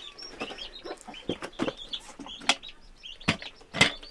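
Chickens clucking, with a few short calls early on. About halfway through come several sharp knocks and clinks of a metal pot and kettle being handled on a clay stove, the loudest near the end.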